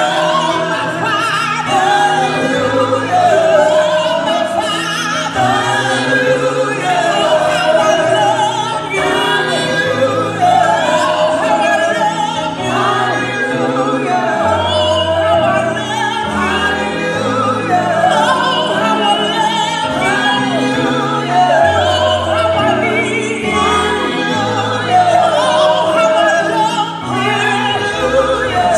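Live gospel worship singing: several singers on microphones through a PA. A lead voice holds long notes with vibrato over sustained, stepping bass notes from a keyboard.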